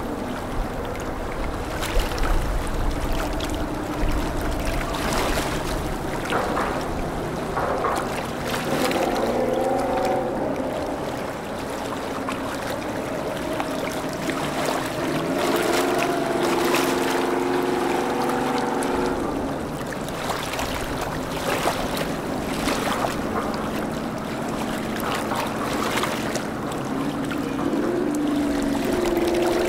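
Boat engines on a busy river, running as steady drones that slide up and down in pitch, over a wash of moving water. Wind gusts knock on the microphone now and then.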